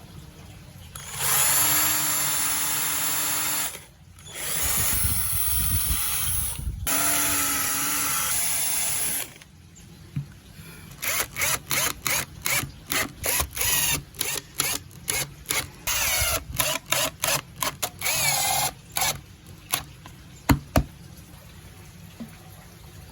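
Audio played through a miniature 6-inch speaker on a PAM8610 amplifier board: two long, harsh, buzzy sustained sounds, then a run of short choppy bursts, and a couple of sharp clicks near the end.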